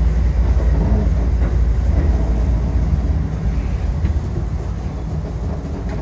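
Electric commuter train pulling away from a station, heard from inside the front car: a steady rumble of running gear and wheels on the rails.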